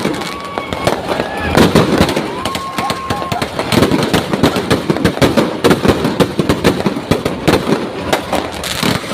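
Fireworks going off in a loud, continuous run of rapid crackling bangs, with voices mixed in.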